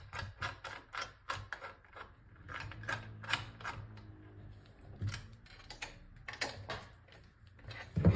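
Small, irregular clicks and ticks of a precision screwdriver turning a screw into a plastic battery casing, several a second. Near the end, a louder knock and rustle as the casing is handled.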